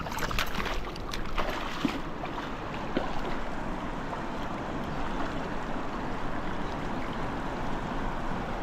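Steady rushing of a fast-flowing river current over and past rocks at the water's edge. In the first couple of seconds there are a few short splashes and knocks close by.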